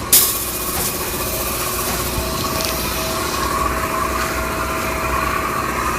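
The spray gun's high hiss cuts off right at the start with a sharp click, leaving a motor of the spray equipment running steadily with a faint steady whine.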